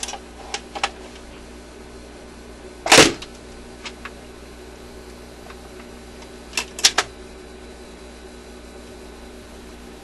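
Admiral suitcase record changer running through its change cycle, with no needle fitted: the motor hums steadily while the changer mechanism clicks. About three seconds in comes one loud thump as the record drops onto the platter, and near seven seconds a quick cluster of clicks from the mechanism.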